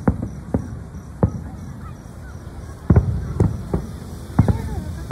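Aerial fireworks shells bursting: a string of irregular bangs, about ten in five seconds, with the heaviest around three and four and a half seconds in.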